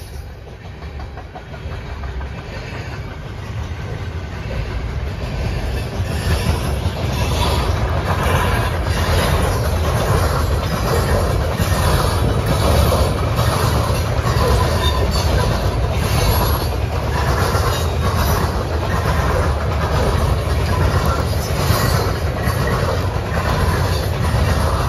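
Freight train's covered hopper cars rolling past, their steel wheels clacking over rail joints in a regular repeating rhythm over a steady low rumble. The sound builds over the first several seconds, then holds at a steady loud level.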